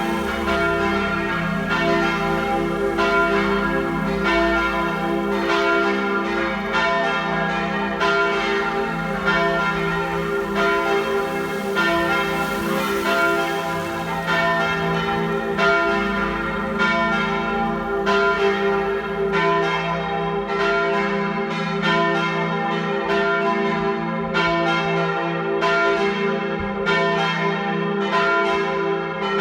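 Several church bells ringing together in a partial peal, their strokes overlapping in a continuous, steady ringing that calls to Sunday evening Mass.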